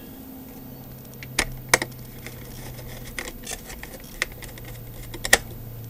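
Screwdriver driving a countersunk screw into the controller's metal chassis: small metallic clicks and ticks, the sharpest about a second and a half in, just before two seconds and near the end.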